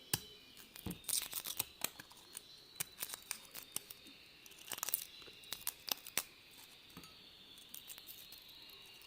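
Irregular crackling and sharp clicks of garlic cloves being handled, their dry papery skins tearing and crinkling.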